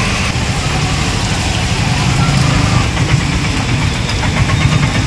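Auto-rickshaw engine idling close by: a steady low running sound that takes on a faster, evenly repeating rattle from about halfway through.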